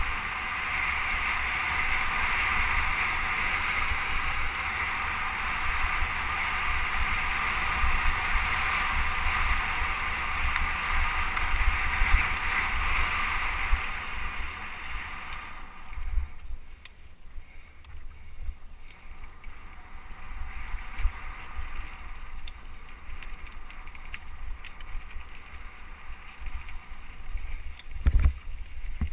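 Mountain bike riding fast over a dirt and gravel track: steady tyre roar and frame rattle with low thuds from bumps, mixed with wind noise on the microphone. About halfway it drops to a quieter rolling rattle with scattered knocks, and there is a hard bump near the end.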